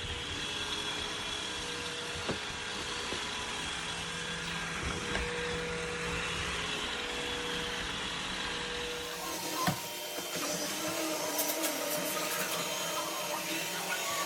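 iRobot Roomba 892 robot vacuum running: a steady whirring of motor and brushes with a few short knocks. About two-thirds of the way through, the sound changes character, with a louder knock.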